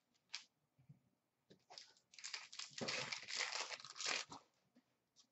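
A wrapper on an Upper Deck SP Authentic hockey card pack crinkling and tearing as the pack is ripped open by hand. A few light clicks come first, then a dense crackly rustle lasting about two and a half seconds.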